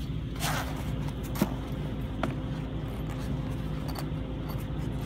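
Zippered soft tool case being worked open one-handed: a short zipper rasp about half a second in, then a few light clicks and scrapes of handling, over a steady low hum.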